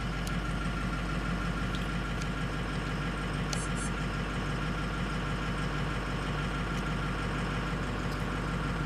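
Ford 6.0-litre Powerstroke V8 turbo-diesel idling steadily, heard from inside the truck's cab. A quick double click comes about three and a half seconds in.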